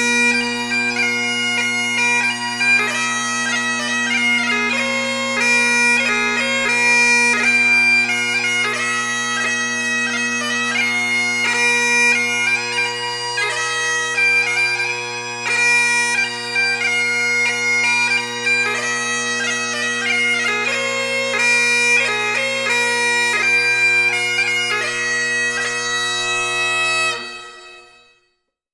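Bagpipes playing a tune over steady low drones. The music fades out near the end.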